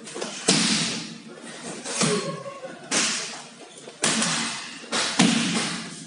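Gloved punches and kicks smacking into a coach's Thai pads, about six sharp hits roughly a second apart, each ringing briefly in the room.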